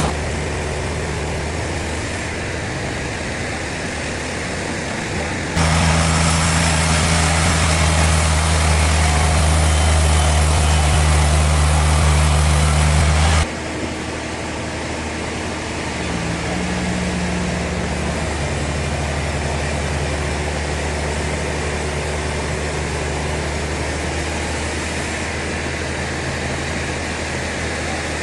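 Sawmill machinery running steadily, with an engine's low hum. A louder, harsher stretch of about eight seconds starts and stops abruptly in the middle.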